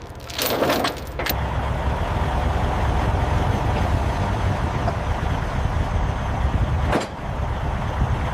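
Heavy vehicle engine running steadily with a low rumble, with one sharp click about seven seconds in.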